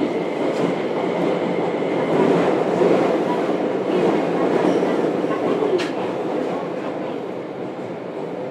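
Interior running noise of a JR Kyushu 303 series electric train motor car with a Hitachi IGBT VVVF inverter, in a subway tunnel: a steady din of wheels on rail and the drive. It grows louder about a third of the way in, then eases off toward the end.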